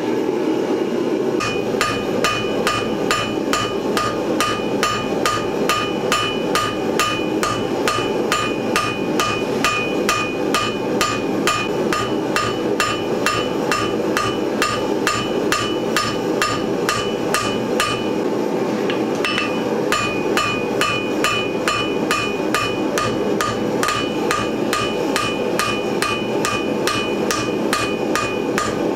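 Hand hammer striking red-hot steel on an anvil in a steady rhythm, about three blows a second, each blow with a metallic ring from the anvil. The blows are thinning and shaping the petals of a forged steel flower.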